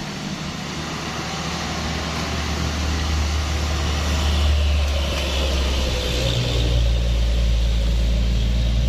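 A heavy diesel truck or bus engine runs low and steady at a sharp bend, growing louder as it comes closer, with tyre and road noise. The engine note changes about six seconds in.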